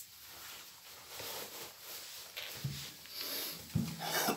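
Handling noise from a person sitting down on a chair and taking up a classical guitar: clothes rustling and a few dull knocks, louder near the end.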